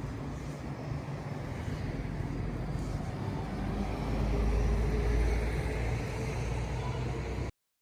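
Low road-vehicle rumble with street noise, swelling about four seconds in and cut off abruptly near the end.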